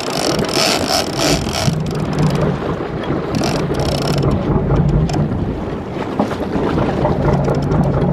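Fishing boat's engine running steadily under way, with wind buffeting the microphone and water rushing past the hull.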